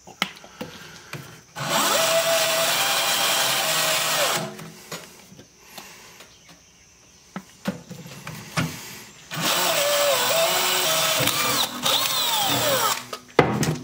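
DeWalt 20V cordless drill driving a small twist bit through the steel side plate of a tractor loader bucket, with cutting oil on the bit. It runs in two bursts of about three seconds each, with a quieter pause between. A whine drops in pitch as the second burst ends.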